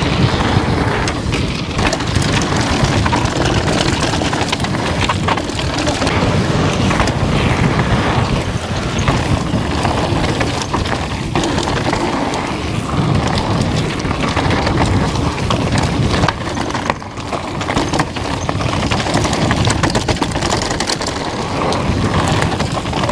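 Norco Aurum downhill mountain bike ridden fast down a rough trail: a steady loud rush of tyre noise and rattling chain and suspension, with wind buffeting the GoPro's microphone and brief very high squeaks now and then in the middle.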